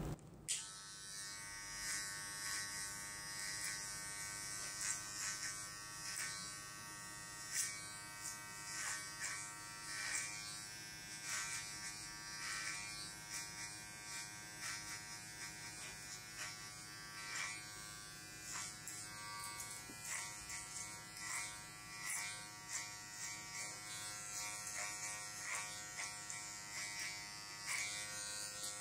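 Cordless electric hair clipper running with a steady hum, with a short rasp every second or so as it is worked through the hair.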